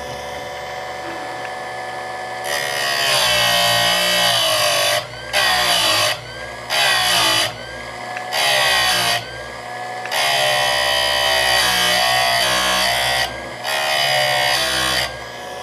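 Buffalo Corp. ECSS electric chainsaw sharpener running with a steady whine. From about two and a half seconds in, its grinding wheel is brought down onto the chain's cutters six times, grinding metal in passes of varying length, the longest about three seconds. Each cutter is being ground back harder than usual to refurbish a chain ruined by a poor sharpener.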